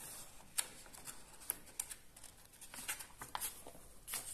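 Pages of a large hardcover book being turned by hand and smoothed flat: faint paper rustles and several short, soft clicks spread through.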